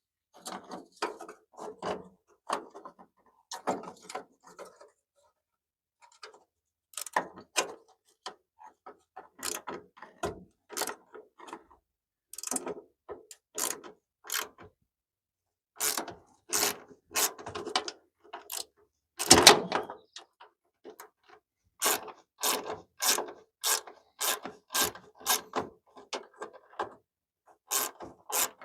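Hand ratchet wrench clicking in short back-and-forth strokes as bolts on a hood latch are worked, in irregular runs that come faster and closer together in the second half.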